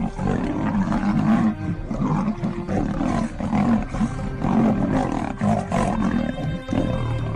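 Big cats roaring over and over, rough calls about a second apart. Music comes in near the end.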